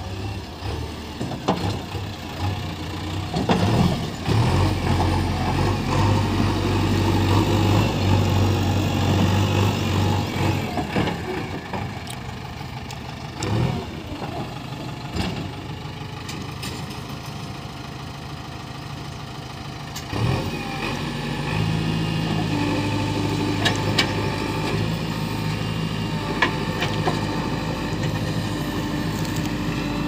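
JCB 3DX backhoe loader's diesel engine running under load. It rises about four seconds in, eases off after about eleven seconds, and picks up again about twenty seconds in as the machine is set up on its stabilisers to dig with the backhoe. A few short knocks are heard.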